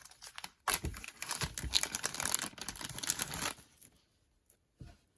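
Wrapping crinkling and rustling for about three seconds as a piece of jewelry is unwrapped, followed by a couple of light clicks.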